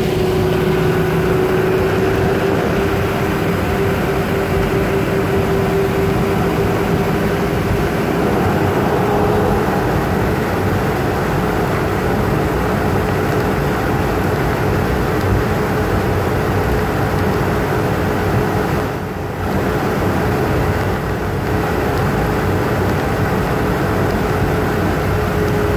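Jet engines of a Southwest Boeing 737 heard from inside the cabin while the plane taxis: a steady noise with a held whine whose pitch drifts slightly. About 19 seconds in it briefly dips quieter.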